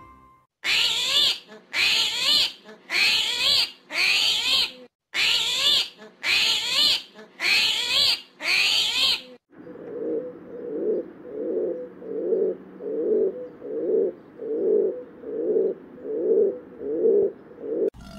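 Eight loud, short animal calls in a row, each a rapid warble, then rock pigeons cooing: about a dozen low coos in an even rhythm, quieter than the calls before them.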